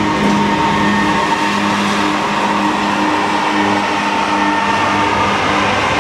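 Union Pacific diesel freight locomotive passing overhead on a steel trestle, its engine running with a loud steady drone and a high steady tone over the noise of wheels on the steel bridge deck.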